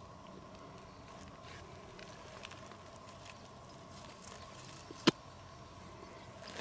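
Pebbles in loose gravel shifting and clicking faintly as a hand picks a small stone out of them, with one sharp click about five seconds in. A faint steady hum runs underneath.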